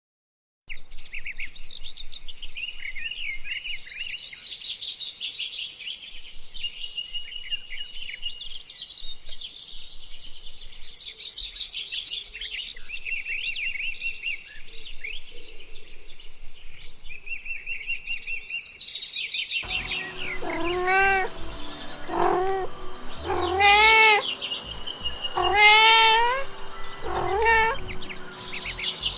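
Birds chirping and twittering in high, thin calls for most of the stretch. Near the end a cat meows loudly about five times, each meow rising and then falling in pitch.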